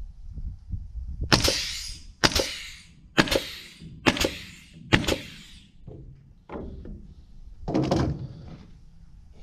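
A series of sharp strikes, five about a second apart, each trailing off in a brief hiss, then a couple of weaker ones near the end.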